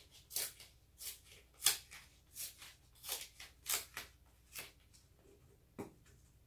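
Masking tape being pulled off the roll, torn and pressed down onto a paper print: a string of about eight short ripping sounds, one every half second to second, with a duller tap near the end.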